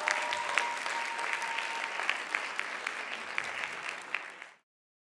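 Audience applauding, with single sharp claps standing out from the steady clapping. The applause cuts off abruptly about four and a half seconds in.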